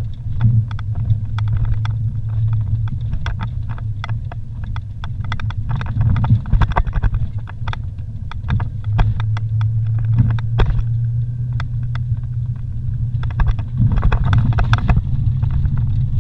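Vehicle engine running steadily at low speed on a rough dirt road, with frequent knocks and rattles as the vehicle jolts over the ruts; the rattling comes in thicker clusters about six seconds in and again near the end.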